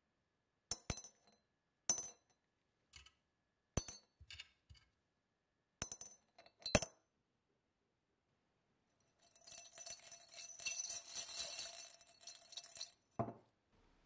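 Small corroded brass lighter parts dropped one at a time into a glass jar, clinking sharply against the glass five times. Then about four seconds of continuous rattling and clinking of metal on glass, ending in a single dull knock.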